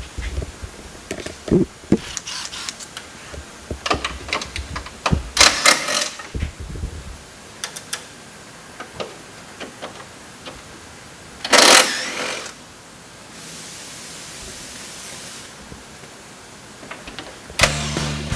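Hand tools working on a truck: scattered clicks, clanks and rattles, with a short loud noisy burst about two-thirds of the way through, followed by a softer hiss. Music comes in near the end.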